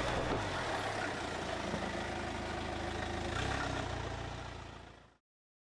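Land Rover Freelander's engine running steadily at low revs as it drives up a dirt track, swelling slightly about three and a half seconds in, then fading out about five seconds in.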